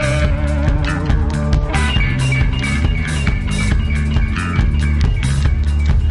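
Rock band playing live with no vocals: electric guitar, bass and drum kit. A held, wavering guitar note changes to new notes about two seconds in, over a steady beat.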